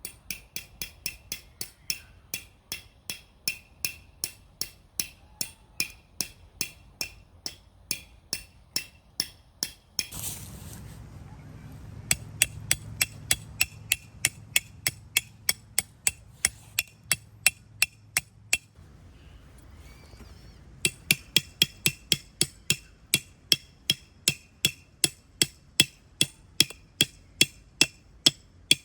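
A hammer driving a metal tent peg, with quick, even strikes about three a second, each with a metallic ring. The strikes stop briefly about ten seconds in and come back louder after a short pause near the last third.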